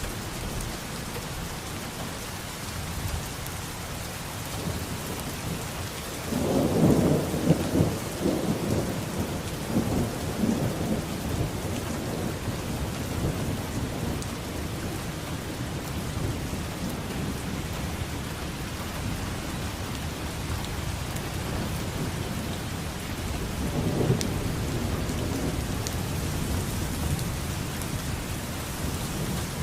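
Steady rain falling through a thunderstorm. A loud roll of thunder rumbles for several seconds from about six seconds in, and a weaker roll comes about three quarters of the way through.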